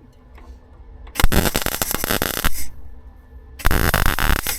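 Welder laying two short bursts of weld, each a little over a second, with a loud steady crackle, joining steel patch pieces to the rust-holed front outrigger of a Rover P6 body.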